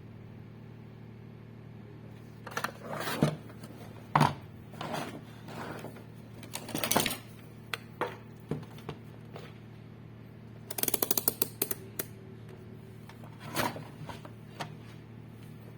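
Scattered clicks and knocks of tools and parts being handled, with a quick run of clicks like a ratchet about eleven seconds in, over a steady low hum.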